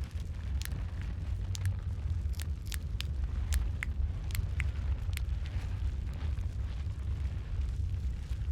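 Wood fire in a fireplace crackling: sharp pops and snaps, roughly two a second, over a steady low rumble of the flames. The pops thin out over the last few seconds.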